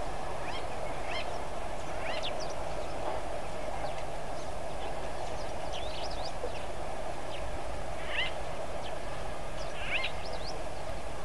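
Steady rush of a shallow river flowing over rocks, with short high bird chirps and whistles scattered through it, the clearest about eight and ten seconds in.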